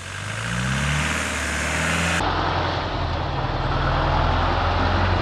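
Land Rover four-wheel-drive engine revving up, rising in pitch. After an abrupt cut about two seconds in, it runs steadily under load with a gritty, noisy sound.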